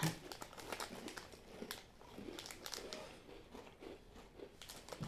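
Plastic snack wrapper crinkling softly as it is handled, in short scattered crackles.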